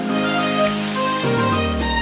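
Background music with a violin-like melody of held notes. About halfway through, a low tone slides downward.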